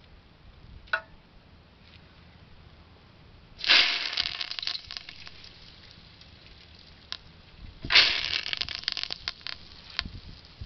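Two loud bursts of crackling leaf rustle about four seconds apart, each trailing off in scattered crackles over a second or so: leafy curry leaf sprigs being snapped off and handled by hand. A single short click comes about a second in.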